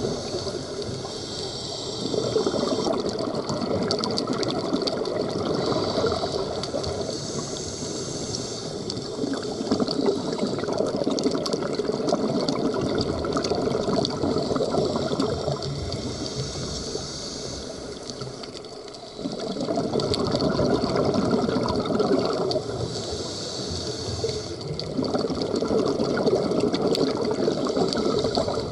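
Scuba diver breathing through a regulator underwater: a high hiss on each inhalation alternating with longer rushes of exhaled bubbles, about four breaths.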